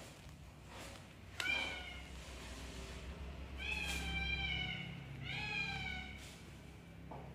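A cat meowing three times, high-pitched. Each meow lasts about half a second to a second and falls slightly in pitch at its end, the first about a second and a half in.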